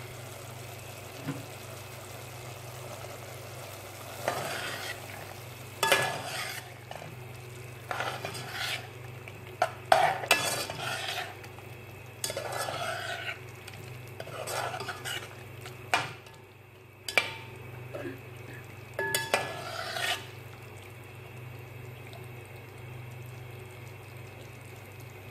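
A spoon stirring and scraping vegetables around a frying pan in a run of short strokes, with the vegetables sizzling, over a steady low hum. The stirring stops a few seconds before the end.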